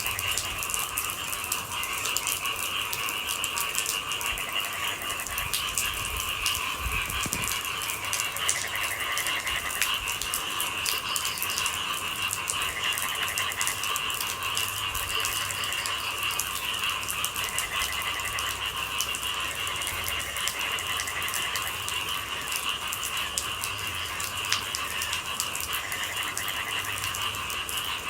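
Rain falling in a dense, steady patter of drops, with a continuous high chorus of night-calling animals behind it.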